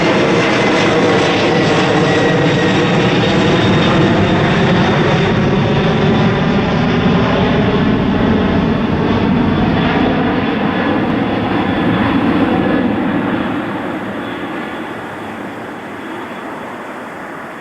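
Jet airliner passing low overhead: a loud rushing engine noise with a slowly sweeping, phasing tone, fading away over the last few seconds.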